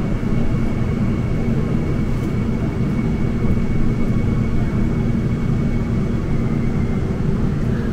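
Steady low rumble of a subway station, with a thin, steady high whine above it.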